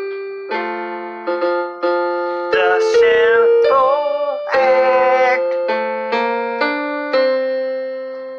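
A song: keyboard chords struck every half-second or so, with a man singing two long notes with vibrato in the middle.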